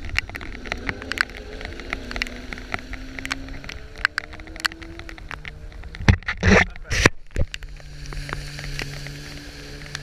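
Stand-up jet ski engines running at low revs amid choppy water, with many sharp ticks of water drops striking the camera. About six to seven seconds in come loud rushing bursts as water washes over the camera, and then a steady engine hum.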